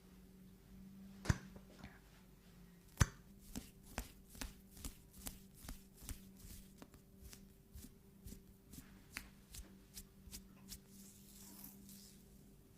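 A run of short, sharp clicks and taps from something being handled, about two a second, after two louder knocks in the first few seconds, over a steady low electrical hum.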